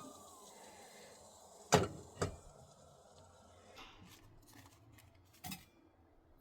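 Camp tea-making gear being handled: two sharp knocks about half a second apart, then a few fainter taps. At the very start a falling whistle fades out.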